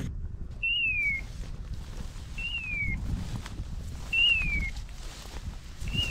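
A short, clean, high-pitched call that rises for an instant and then falls away, like a hawk's scream, repeated four times at even intervals of about two seconds. Under it is a low rumble of wind and rustling.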